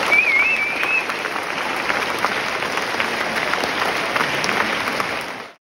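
Audience applauding, a dense patter of many hands clapping, with a brief wavering high tone in the first second; the applause cuts off abruptly near the end.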